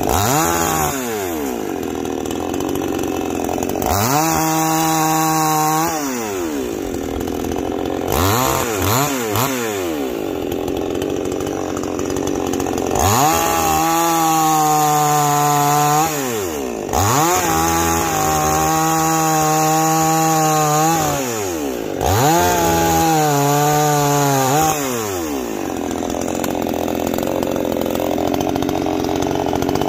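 Neo-Tec NCS5800 58cc two-stroke chainsaw bucking ash logs. It repeatedly revs to full throttle for cuts of two to four seconds and drops back to idle between them, with a couple of quick throttle blips about eight seconds in. It settles to idling near the end.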